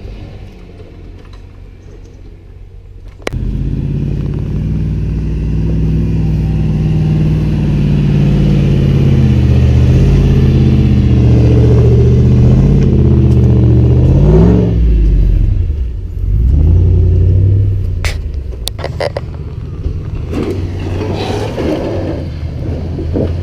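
Off-road 4x4 engine pulling under load on a trail, suddenly louder a few seconds in; its pitch climbs to a peak about fourteen seconds in and drops away. A few sharp knocks follow around eighteen seconds in, and the engine then runs lower and rougher.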